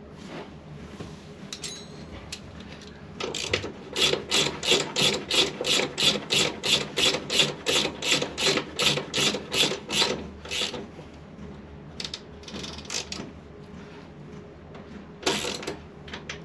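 Ratchet spanner being worked back and forth in a steady run of clicking strokes, about three a second for some seven seconds, then a few shorter bursts of clicks near the end.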